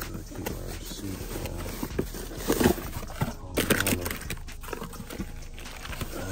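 Plastic shopping bag and cardboard box rustling and crinkling as a hand unpacks a new wheel hub assembly, with a couple of brief vocal sounds near the middle.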